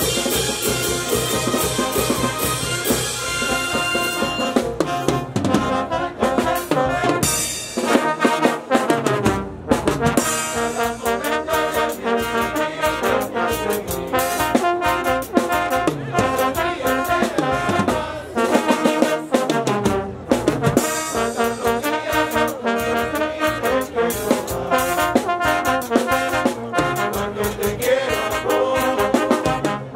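Peruvian banda (brass band) playing live: trumpets and trombones carrying the melody over a steady beat of drums and cymbals.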